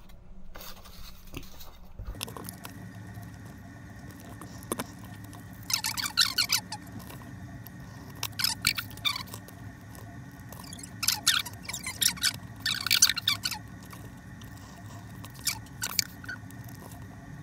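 Utility knife blade drawn through a polystyrene foam board (Woodrock) along a ruler, squeaking high and scratchy in about five short runs of strokes. A faint steady hum lies underneath.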